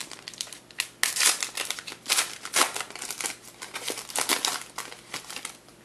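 Trading cards being handled: an irregular series of short, dry rustling slides and flicks as cards are pushed off a stack and set down.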